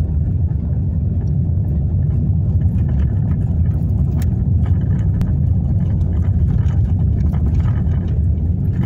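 Car cabin noise while driving over a rough, gravel-strewn street: a steady low rumble of engine and tyres, with a few sharp clicks about four and five seconds in.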